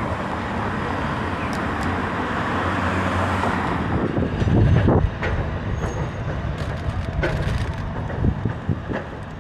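Road traffic: a vehicle approaches and passes close by, building over the first few seconds and loudest about five seconds in, followed by general street noise.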